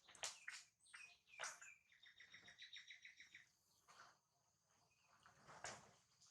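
Faint, high-pitched animal calls: a few short chirps and squeaks sliding down in pitch, then a rapid trill of about ten pulses a second lasting over a second.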